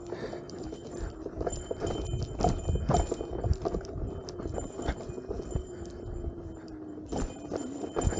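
Begode Master electric unicycle riding down a loose dirt trail: its hub motor gives a steady whine that drifts in pitch with speed, under irregular knocks and clatter from the wheel jolting over rough ground, thickest about two to three seconds in and again near the end.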